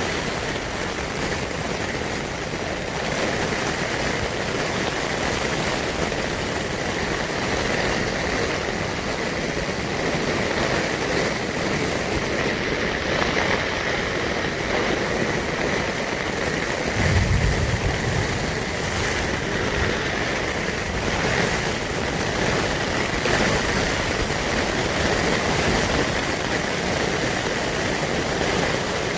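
Steady rushing noise of a heavy rainstorm, with a brief low rumble about halfway through.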